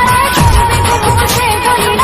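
Loud Indian film-style dance music played through a DJ sound system, with a steady thumping drum beat under a wavering melody line.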